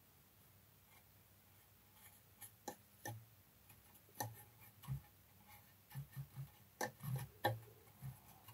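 Faint, irregular taps and scratchy clicks of a paintbrush dabbing enamel streaking grime onto a plastic model part, starting about two seconds in and coming thicker near the end.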